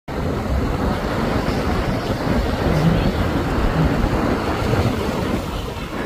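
Wind buffeting the microphone over the steady wash of small waves breaking in the surf.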